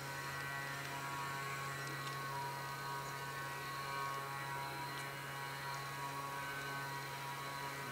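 Quiet, steady low hum with a few faint steady higher tones over it and no distinct event.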